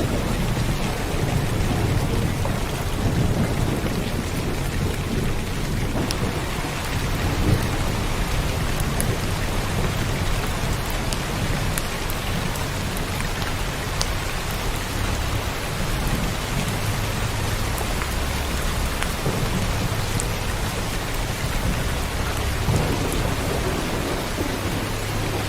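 Steady heavy rain with a low rolling rumble of thunder underneath and the odd sharp drop tick.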